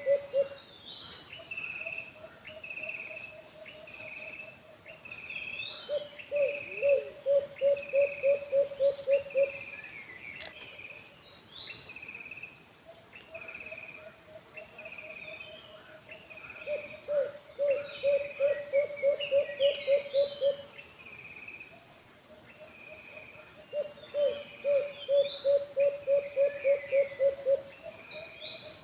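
Alimukon (wild dove) calling: a held low note running into a rapid series of coos, about four a second, given three times. A steady high insect trill and short chirps from other birds run underneath.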